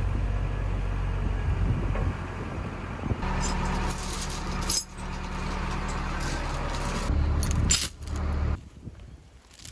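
Backhoe engine running steadily under work, with scattered knocks and rattles. It cuts off suddenly near the end.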